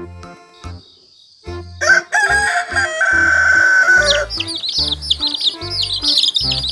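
A rooster crowing, one long call starting about two seconds in, over background music with a steady beat. From about four seconds in, rapid high chirping takes over.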